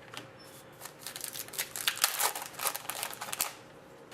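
Trading cards being handled and flipped through, a quick run of crisp clicks and rustles for a couple of seconds, over a faint steady hum.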